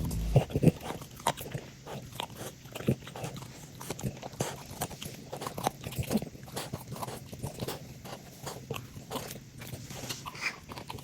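A dog chewing and biting during play: irregular crunches and clicks, a few every second.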